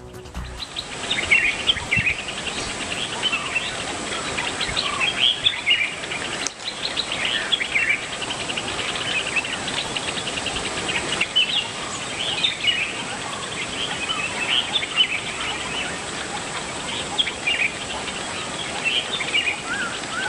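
Forest birds chirping and calling off and on, short high chirps over a steady high-pitched whine and a constant background hiss.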